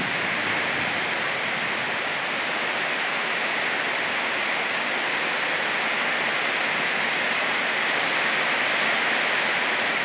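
Heavy rain pouring down steadily, an even hiss without breaks.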